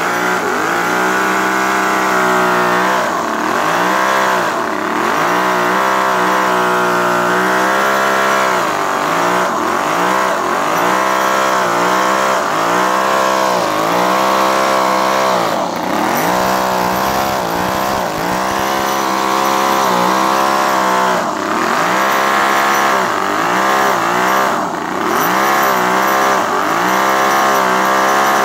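Toyan FS-V800 miniature V8 model engine running, its revs rising and falling over and over every second or two.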